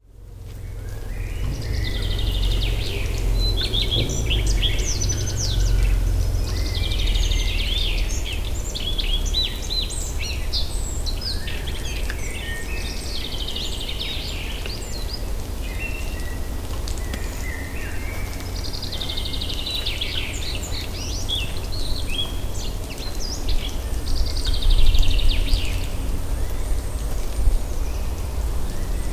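Outdoor ambience: songbirds singing in short chirping phrases that come back every few seconds, over a steady low rumble.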